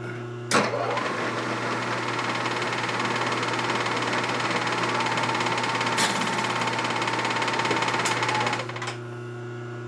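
Vertical milling machine spindle switched on, running a boring head that cuts the bore of an aluminium 1947 Harley-Davidson knucklehead crankcase. It starts abruptly about half a second in, runs steadily with a thin whistling tone over the machine noise, has two sharp clicks near the end, and stops just before the 9-second mark.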